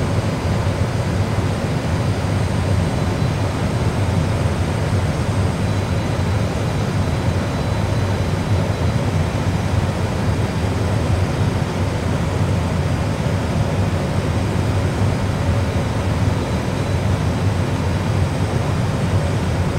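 Steady low rushing noise of an Airbus A320 full flight simulator's cockpit in flight: the simulated airflow and engine sound, even throughout.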